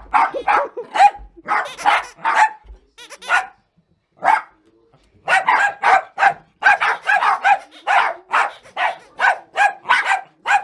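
Jack Russell terrier barking over and over in short, sharp barks, two or three a second. There is a brief lull about four seconds in, then a quick, unbroken run of barks.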